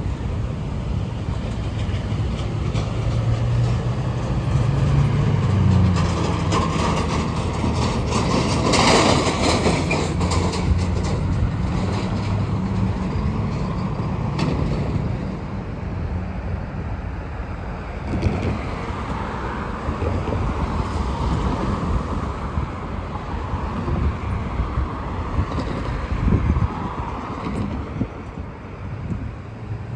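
Street traffic: motor vehicles running and passing close by, with a louder pass about nine seconds in.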